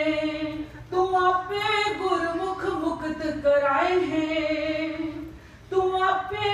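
A woman singing a Sikh hymn (shabad) slowly and unaccompanied into a microphone, in long held notes that glide up and down. She breaks briefly about a second in and again near the end.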